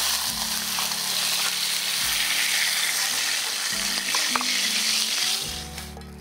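Arctic grayling fillets sizzling as they fry over a fire, a dense steady hiss that fades out sharply about five and a half seconds in. Background music with low held notes runs underneath.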